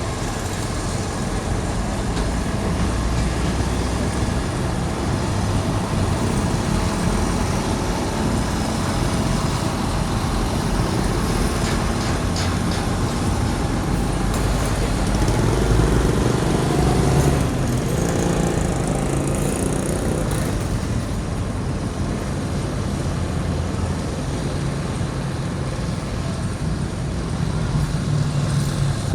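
Steady road traffic noise with vehicle engines running. A louder pitched engine swells and passes about halfway through.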